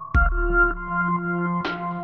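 Electronic background music: sustained synthesizer chords, with a deep bass hit near the start and a short swish about a second and a half in.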